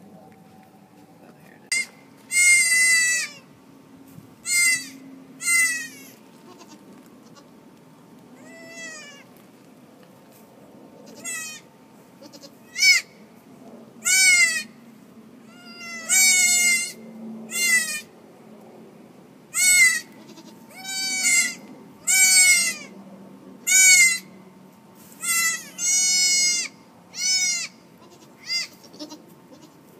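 Newborn goat kids bleating over and over: about sixteen short, high-pitched bleats, each rising and then falling in pitch, one every second or two.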